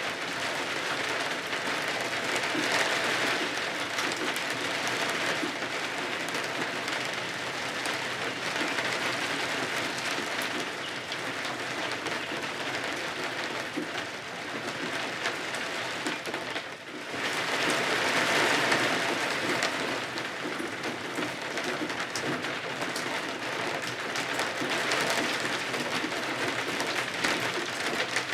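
Steady heavy rain, a dense patter that swells and eases every few seconds and briefly drops away a little over halfway through.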